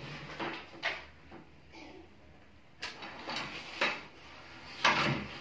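Handling noises as a shoulder strap with metal snap hooks is clipped onto a plastic fishing-rod tube: a string of short clicks, rattles and scrapes, the loudest about five seconds in.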